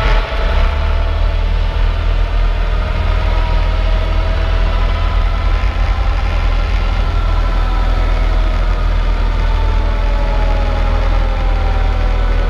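Cessna 152's four-cylinder Lycoming engine at idle with the propeller turning, heard inside the cabin during the landing rollout. Its tone sinks slowly in pitch as the plane slows, over a steady deep rumble.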